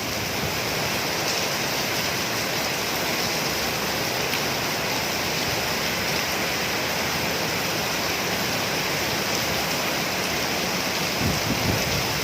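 Heavy rain falling in a steady, dense hiss, with a few brief low rumbles near the end.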